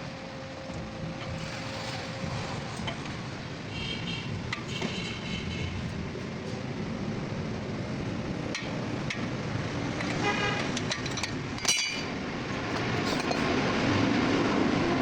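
Steady road traffic and motor vehicle noise with a few short car horn toots, around four to five seconds in and again near ten to twelve seconds. The vehicle noise grows louder near the end.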